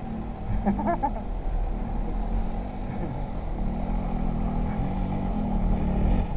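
Quad bike engine running at low, unsteady revs with a low rumble, heard from the rider's position. About a second in, a short sound with a bending pitch rises briefly above it.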